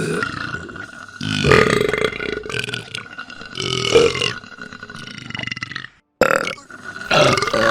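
A string of loud, drawn-out burps, about four, each lasting up to a second, made as play burps for toy dolls being burped after their bottle.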